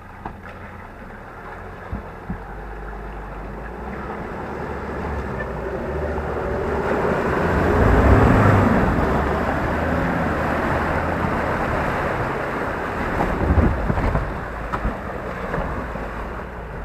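Ford Ranger 4WD engine working as the ute drives through a muddy bog hole, with water surging and splashing around it. The sound builds to its loudest about halfway through and stays loud, with a few knocks near the end.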